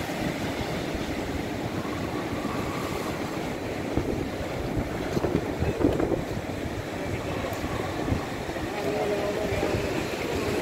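Wind buffeting the microphone over the steady wash of surf breaking below the pier.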